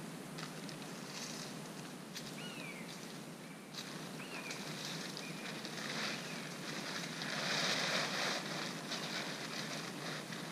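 Rustling and flapping of a large tarp as it is pulled out and shaken open, loudest about seven to eight seconds in.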